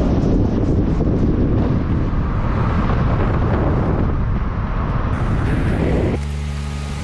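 Vehicle driving, heard from inside the cabin: a steady rumble of engine, tyres and wind noise. About six seconds in the sound cuts abruptly to a quieter, steadier hum with a few held tones.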